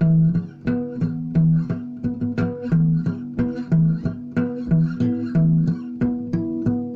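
Instrumental music of plucked strings, guitar with a bass line, playing an even rhythm of picked notes.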